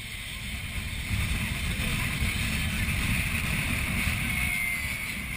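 Wind buffeting the microphone on a pontoon boat under way, over a steady hiss of the boat moving through water; it grows louder about a second in.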